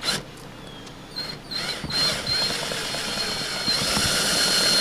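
Cordless drill spinning a socket on a stripped, rusted chain plate nut so that the nut grinds against a hacksaw blade and is cut off. A few short bursts of the drill come first. It then runs steadily with a high whine and a grinding metal noise that grows louder a little before the end.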